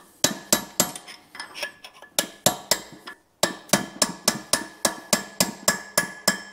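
Ball-peen hammer striking a metal drift held against the inner race of a roller bearing, driving the bearing onto a Farmall H transmission countershaft. Rapid metal-on-metal blows, about three to four a second with a brief pause about three seconds in, each with a short ring.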